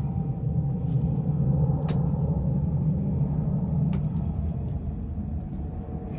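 A vehicle's engine running with a steady low rumble and a few light clicks and rattles.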